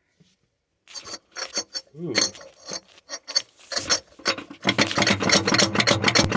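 Rough scraping and rubbing close to the microphone: a quick, irregular run of rasping strokes that becomes denser and louder after about four and a half seconds.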